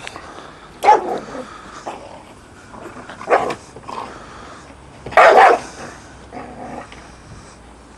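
Giant Schnauzer barking: loud barks about every two seconds, with quieter ones in between.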